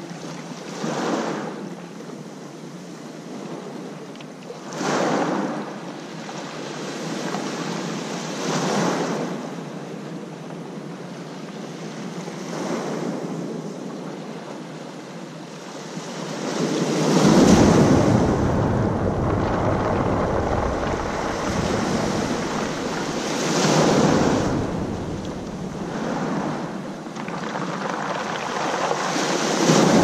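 Black Sea waves breaking on the shore, the surf rushing and swelling again every few seconds. From a little past halfway, wind on the microphone adds a low rumble.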